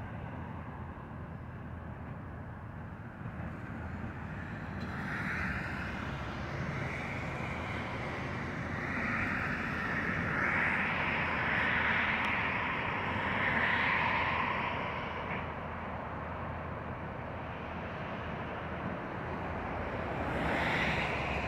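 Road traffic passing on a nearby street: a steady low engine hum with several vehicles swelling up and fading away, the loudest stretch in the middle and another pass near the end.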